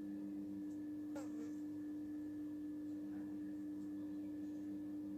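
A steady, even hum that sounds like one pure tone, with a faint click about a second in.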